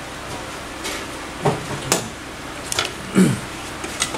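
Several short metallic clicks and knocks as a copier's primary charger assembly, a long metal rail unit, is handled and set back in place on the machine.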